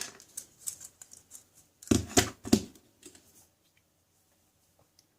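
Light clicks and rustling from handling small parts and tools on a workbench, with three louder short knocks about two seconds in, dying away after about three and a half seconds.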